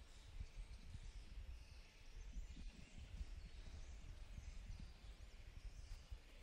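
Quiet outdoor ambience: a low, uneven rumble with faint high chirps of birds.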